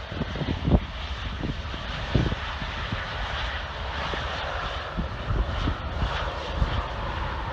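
Airliner jet engine noise building gradually as a steady rush, with wind buffeting the microphone in low, irregular thumps.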